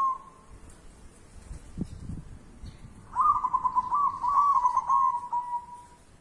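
A dove cooing: one phrase of rapid repeated notes starting about three seconds in and trailing off near the end, after the tail of an earlier phrase at the very start. A low thump about two seconds in.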